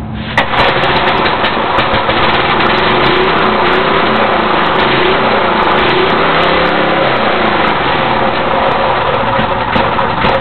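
Briggs & Stratton 5 hp single-cylinder engine on an old rototiller running fast and steadily on a cold start, with scattered pops. It is running again after its broken flywheel key was replaced.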